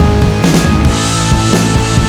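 Background rock music: steady drums with sustained guitar or keyboard tones.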